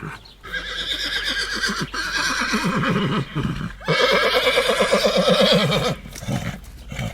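Horse neighing: wavering whinnies, the loudest and longest about four seconds in, lasting around two seconds.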